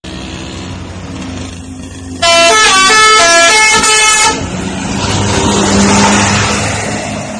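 Indonesian bus 'telolet' musical air horn playing a quick tune of stepping notes for about two seconds, about two seconds in, over the low rumble of traffic. Then the broad rush of a large vehicle's engine and tyres swells as it passes.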